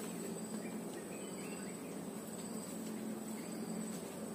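Quiet outdoor ambience in scrub: a steady high-pitched insect drone, with a few faint chirps between about half a second and a second and a half in.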